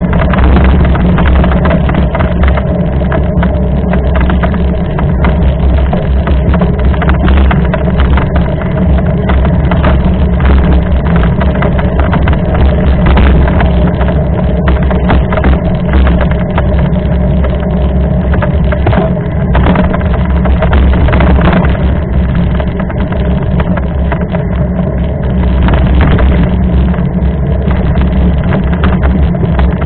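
Mountain bike riding over a dirt trail: a loud, constant rumble of wind on the microphone with frequent small knocks and rattles from the bike and camera jolting over rough ground.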